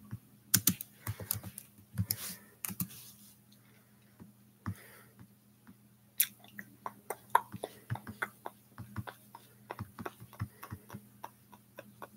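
Typing on a computer keyboard: a quick flurry of keystrokes, a pause of a few seconds, then a fairly steady run of keystrokes, about three or four a second.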